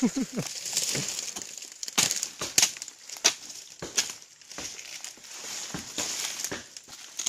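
Dry undergrowth of fronds, branches and leaf litter rustling and crackling, with a string of sharp snaps spaced about half a second to a second apart.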